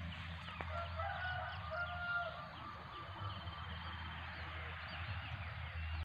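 A rooster crows once about a second in, a call held for a little over a second, over steady chirping of small birds and a low steady hum.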